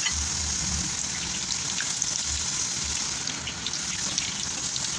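Slices of cassava (tapioca) chips deep-frying in hot oil: a steady sizzling hiss with a few faint crackling pops.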